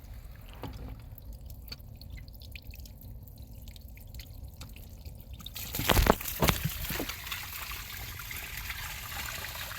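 Faint clicks over a low rumble, then about six seconds in backed-up drain water bursts out of the opened sewer line with two loud splashes and keeps pouring and splattering.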